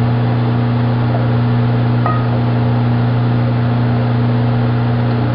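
Steady low electric hum of a wheel-straightening machine running while a bent alloy wheel is pressed back into round.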